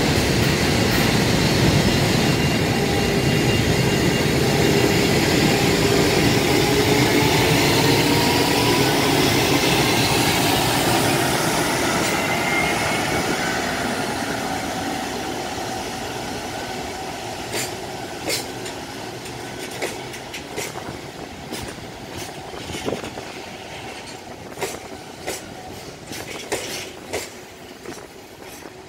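JR Freight EF510 electric locomotive hauling a container freight train past, its motor whine rising steadily in pitch as it gathers speed. The sound then fades as the container wagons roll by, with sharp irregular clacks of wheels over rail joints.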